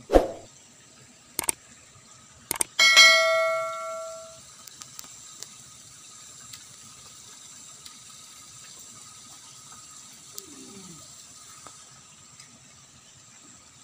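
A thump, two short clicks, then a single bell-like metallic clang that rings out and fades over about a second and a half, over a faint steady hum.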